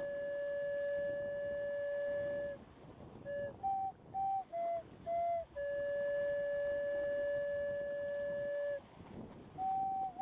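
Slow flute melody: a long held note, a run of short notes stepping up and down, then another long held note.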